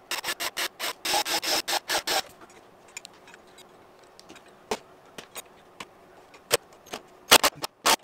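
A run of sharp clicks and knocks, close together for about the first two seconds, then a few scattered ones. This is the metal hardware of a retractable caster being handled and fitted against a wooden workbench leg.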